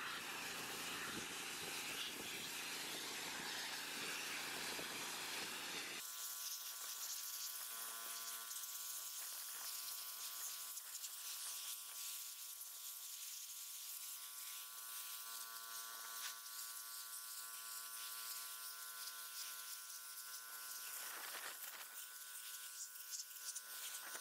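Pressure washer running steadily, its jet hissing against concrete retaining-wall blocks. About six seconds in the sound changes abruptly to a steady buzzing whine over the spray hiss, with the low rumble gone.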